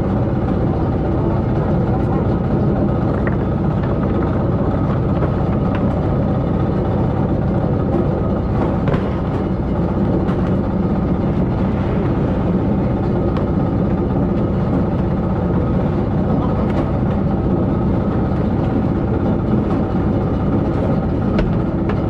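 Motorized bangka's engine running steadily at a constant speed, with a dense low drone.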